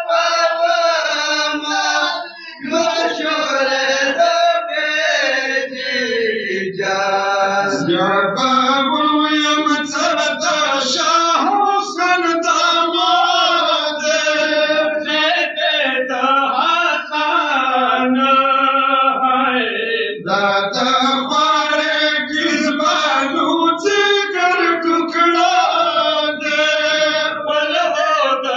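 Male voices chanting a Pashto noha, a Shia mourning lament, in long melodic sung lines.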